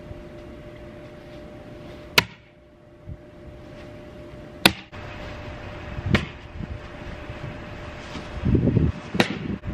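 Cornhole bean bags landing on a wooden cornhole board: four sharp smacks a couple of seconds apart, over a faint steady hum.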